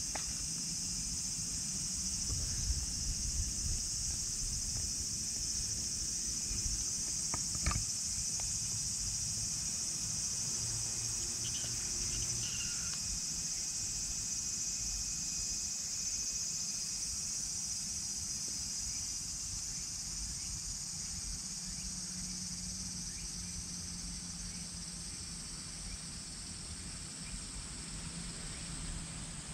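A steady, high-pitched drone of a summer insect chorus, with low rumble underneath.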